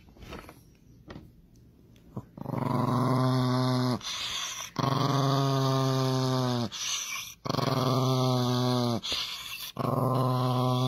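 Small Chihuahua-type dog growling in long, steady, drawn-out stretches: three full growls, each about a second and a half to two seconds long, beginning a little over two seconds in, and a fourth starting near the end.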